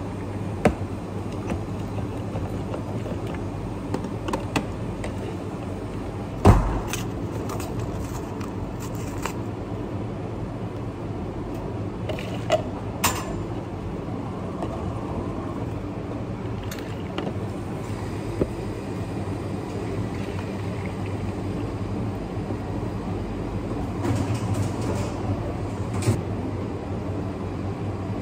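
Steady machine hum of a café's coffee bar, with scattered clinks and knocks of cups and equipment being handled; one sharp knock about six and a half seconds in is the loudest.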